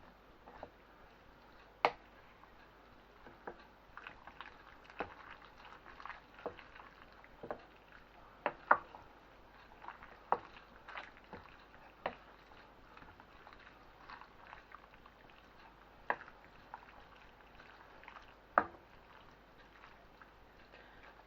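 A spoon knocking and scraping against a saucepan as cooked fusilli is stirred through a wet tomato sauce: irregular sharp clicks every second or so over a soft wet squelch.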